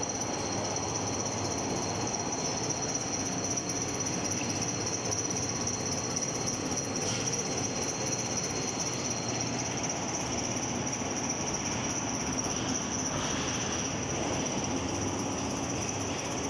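Steady factory machinery noise with a continuous high-pitched whine; a second, slightly lower whine stops about ten seconds in.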